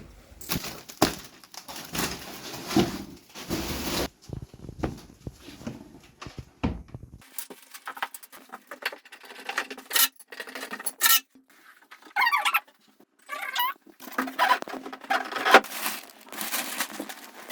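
Bed frame and mattress being installed: scattered knocks and clicks of parts being handled, rustling of packaging, and a few short squeaks.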